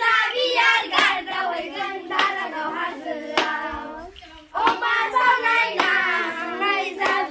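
A group of children sings a Bodo Bwisagu dance song together, with a sharp hand clap about every second. The singing breaks off briefly about four seconds in, then starts again.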